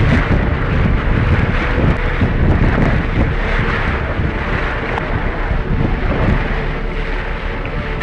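Wind buffeting the microphone on a tour boat's deck, over a steady engine hum and rushing water.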